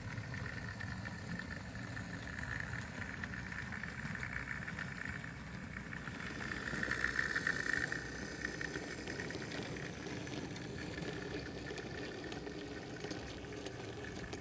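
Model pannier tank locomotive running along the track, a steady motor-and-wheel whirr with fine rapid ticking. It gets louder for a moment about halfway through as it passes close by.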